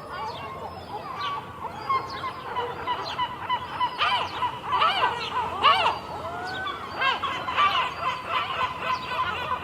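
A flock of gulls calling, many short arched calls overlapping, growing busier about halfway through.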